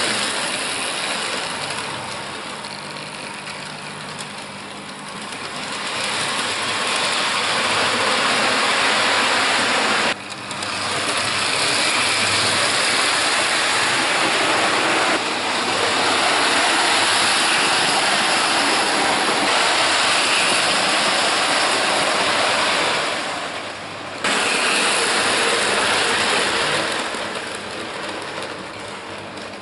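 Trix Express H0 model train running on the layout track: a steady whirr of its motor and metal wheels rolling on the rails, swelling louder as the train comes close, with two sudden breaks, and easing off near the end.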